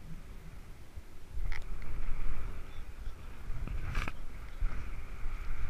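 Wind buffeting the microphone in an uneven low rumble, with a faint click about a second and a half in and a sharper knock about four seconds in.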